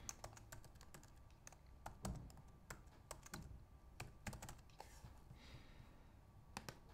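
Faint keystrokes on a computer keyboard, an irregular run of short clicks as a word is typed.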